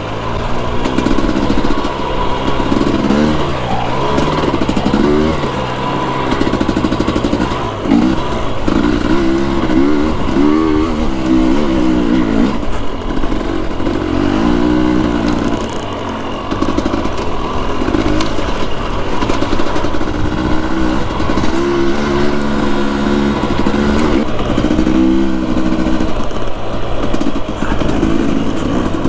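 2021 Husqvarna TE250i dirt bike's fuel-injected two-stroke single-cylinder engine running under load while being ridden, its revs rising and falling again and again.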